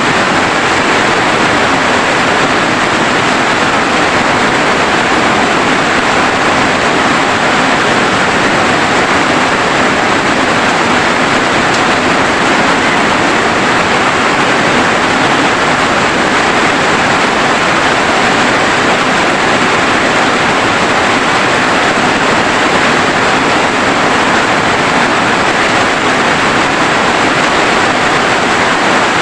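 Rain falling steadily, an even hiss with no breaks or single drops standing out.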